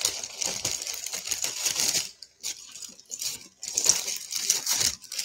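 A small bag crinkling and rustling as it is handled, with light clicks and clinks of the jewelry set, in uneven bursts with a short pause about two seconds in.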